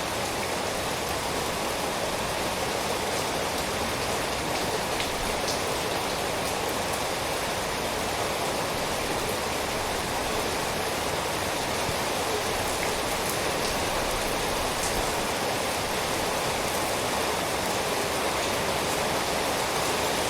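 Steady rain falling, an even hiss of water with a few faint individual drop ticks.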